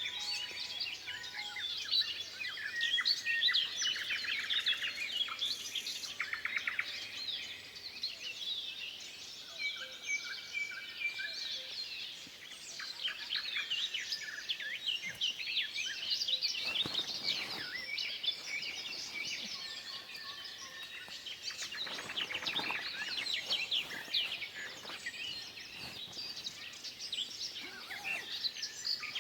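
Several songbirds singing and chirping at once, with overlapping calls and quick trills, in a forest. Two short noisy bursts break in about halfway through and again a few seconds later.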